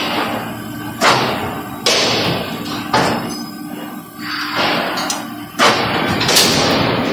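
CNC angle-bar punching line striking steel angle bar: several heavy metallic thumps with ringing tails, roughly one a second, over a steady hum in a large echoing hall.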